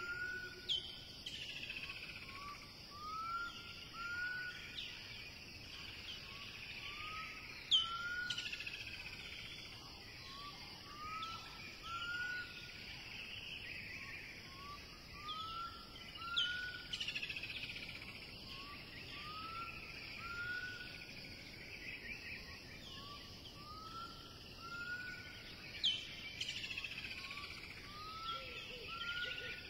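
Outdoor ambience of birdsong over a steady high insect drone: a bird repeats short rising-then-falling whistled notes, often in pairs, every couple of seconds, with higher falling notes in between.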